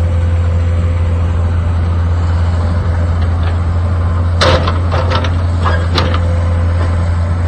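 Takeuchi TL10 track loader's diesel engine running at a steady, loud drone. A few sharp knocks or clanks come about four and a half and six seconds in.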